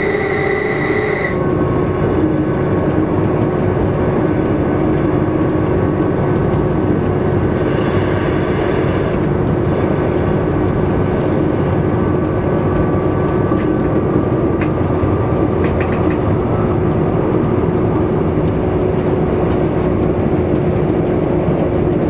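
Train running along the line, heard from the driver's cab: a steady engine drone over the rumble of wheels on track. A short high horn note at the start cuts off about a second in.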